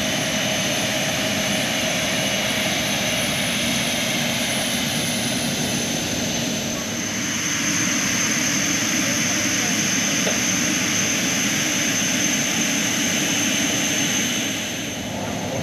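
Steady jet aircraft noise: an even rushing with a high whine over it, growing a little louder about seven seconds in and easing off near the end.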